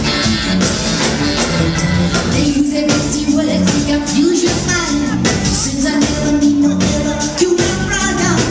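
Live 2 Tone ska band playing: drums, bass guitar, electric guitar, saxophones and keyboards with lead singing over a steady beat, heard through the hall from the audience.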